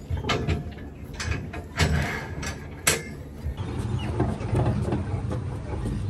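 Sharp knocks and clatter for the first three seconds or so, then a steady low rumble of a wheeled piglet cart being pushed along a concrete barn aisle.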